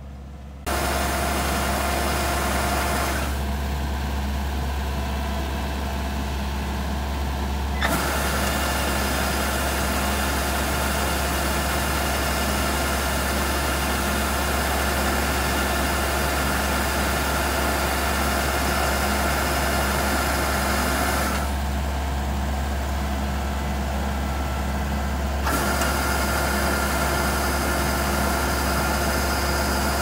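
Kubota DC-105X combine harvester's diesel engine running steadily while its unloading auger discharges rice into sacks. It comes in suddenly under a second in, and its tone shifts abruptly a few times.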